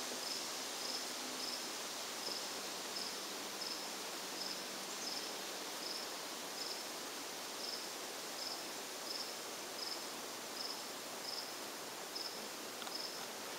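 A cricket chirping steadily, short high chirps about two a second, over a steady background hiss.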